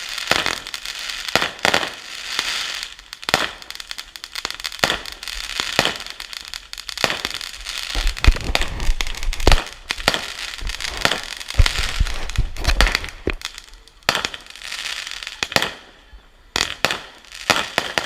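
Consumer fireworks going off in quick, irregular succession, with sharp bangs and dense crackling. The heaviest, deepest booms come about eight seconds in and again around twelve seconds.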